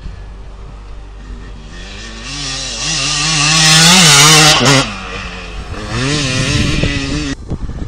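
Motocross bike engine revving up and down as the bike passes close by, swelling to its loudest about four seconds in and cutting off abruptly, then a second bout of rising and falling revs.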